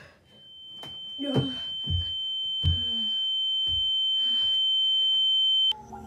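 A steady high-pitched ringing tone that grows steadily louder and cuts off suddenly near the end. Underneath it are a few soft thumps and faint vocal sounds.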